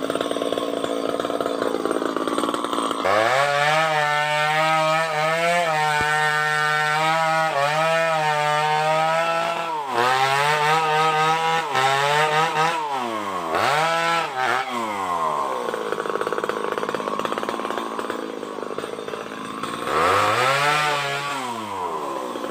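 Two-stroke chainsaw held at high revs for about ten seconds, its pitch dipping briefly a few times. The revs then fall away and it runs low, before a short rev up and back down near the end.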